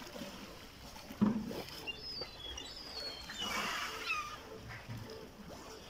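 Sea lions calling in the water, with one loud low bark about a second in. Seabirds overhead give a run of thin, high chirping calls between about two and four seconds in.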